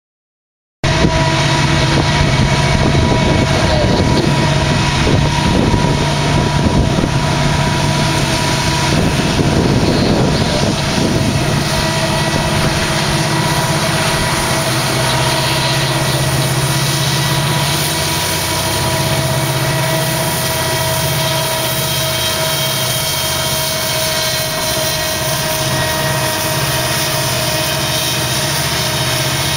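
Two BNSF SD70-series EMD diesel locomotives with 16-cylinder two-stroke engines working under heavy load as they pull a train past: a loud, steady roar with a steady whine over it. The sound cuts in about a second in, and the low drone shifts and wavers about two-thirds of the way through as the units go by.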